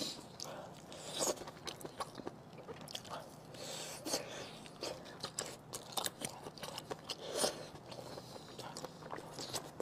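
A person biting into and chewing chewy pork large intestine coated in chili sauce, close to the microphone, with many irregular soft clicks and smacks.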